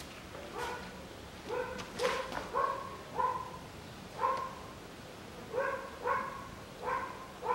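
A dog barking repeatedly, short sharp barks coming about once or twice a second.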